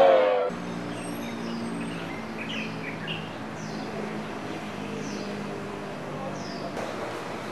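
A crowd's chanting cuts off in the first half second. Then comes outdoor ambience: birds chirping with short falling calls, roughly once a second, over a steady low hum.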